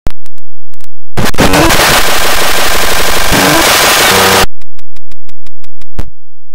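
Harsh, heavily distorted and clipped electronic audio: a run of sharp clicks, then about three seconds of dense, grating noise with sliding tones, then another quick run of sharp clicks.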